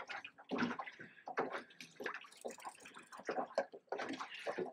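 Water lapping and slapping against a boat hull in irregular splashes.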